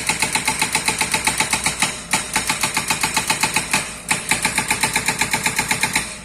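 Excavator-mounted hydraulic breaker hammering: rapid, evenly spaced blows, about seven a second, that let up briefly about two and four seconds in.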